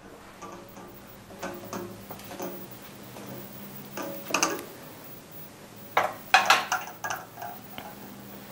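Glass and metal serving tray clinking and knocking as it is carried and set down on a wooden cabinet. Scattered light clinks, with a cluster about four seconds in and the loudest sharp knocks and clinks between six and seven seconds in.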